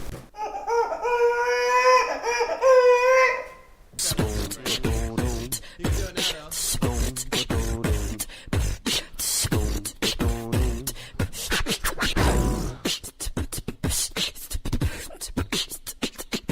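A beatboxer's voice: a held, wavering pitched tone for about four seconds, imitating a sound on request, then a fast beatbox rhythm of vocal kicks, clicks and short pitched sounds.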